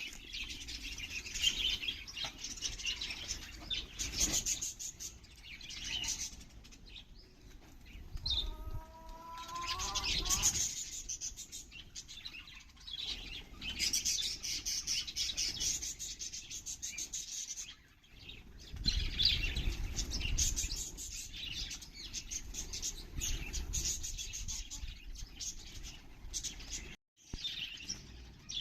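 Budgerigars chirping and chattering continuously, with bursts of wing flapping as they bathe.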